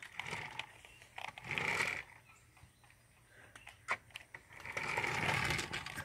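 Toy remote-control car's small electric motor whirring as it drives, in two short runs about a second and a half long each, with a few light clicks between them.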